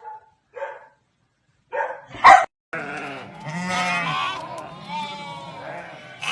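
Animal calls: a few short, sharp calls in the first couple of seconds, then after a brief silence longer, wavering cries over background noise.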